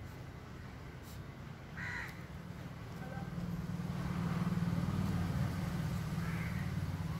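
A low, steady rumble that swells louder from about three seconds in, with two short bird calls, one about two seconds in and one near the end.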